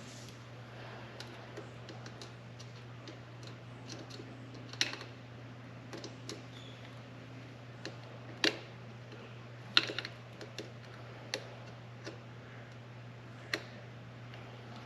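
Scattered sharp clicks and taps of hand work as a K&N pod air filter is pushed and worked onto a motorcycle carburettor, over a steady low hum.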